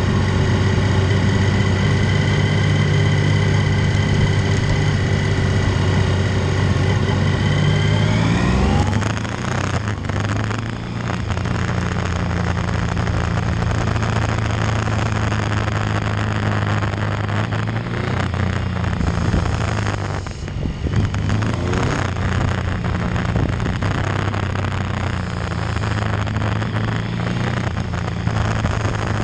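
Motorcycle engine running at a steady pitch while rolling slowly, then rising in pitch as the bike accelerates about eight seconds in. From then on the engine runs under heavy wind rush on the microphone, with a few brief changes in engine pitch.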